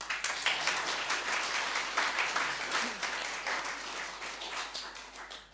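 Church congregation applauding. The clapping starts suddenly and dies away near the end.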